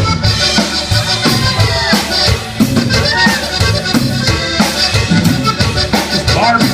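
Live Tejano band playing an instrumental passage: an accordion melody over electric bass guitar and a drum kit, with a steady beat.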